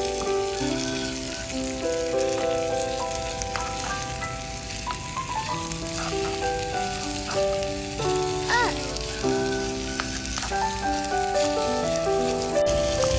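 Pork ribs and diced bell peppers sizzling as they fry in a tiny clay pot over a miniature ember stove, with a steady hiss, under background music playing a melody of held notes.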